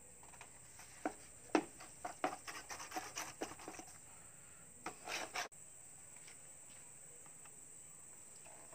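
Small masonry trowel scraping and tapping wet cement mortar against a plastic paint bucket and wire mesh: a quick run of short scraping strokes from about one to four seconds in, and another brief flurry around five seconds.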